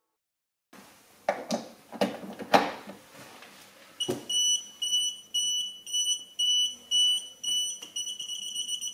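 A few handling clicks and knocks, then a non-contact voltage tester pen beeping. It gives a high-pitched beep about three times a second, quickening to an almost continuous beep near the end, as the pen picks up the electric field of a live lamp cord.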